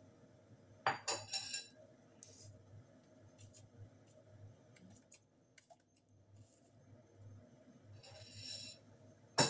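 Noodles slurped in through the lips in short noisy bursts, about a second in and again near the end, with light clicks of wooden chopsticks against a plastic food tub between them.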